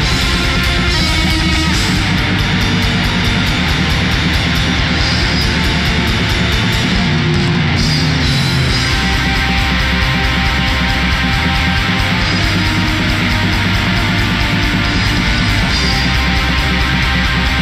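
Heavy metal song with loud electric guitars, the sound dense and unbroken.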